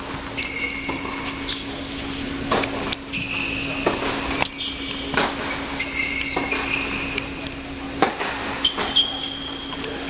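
Tennis balls being struck and bouncing in an indoor tennis hall, a dozen irregular sharp knocks, with short high squeaks of shoes on the hard court and a steady low hum.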